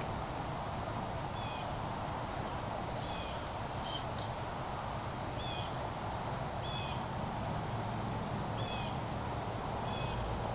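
A small bird chirping faintly, short calls about every one to two seconds, over a steady background hiss with a thin high whine.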